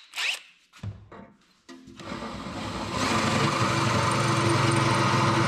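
Cordless drill boring into the stamped steel motorcycle frame at the swing-arm pivot, most likely opening the 10 mm pivot hole up for a 12 mm bearing. A few light clicks come first; the drill starts about two seconds in, builds over a second to a steady running tone, and stops right at the end.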